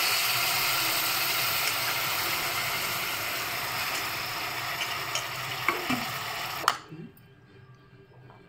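Raw boneless mutton sizzling in hot oil with fried onions and ginger-garlic paste in an aluminium pressure cooker: a steady hiss that slowly fades, with a few light knocks near the end. It cuts off suddenly about two-thirds of the way through.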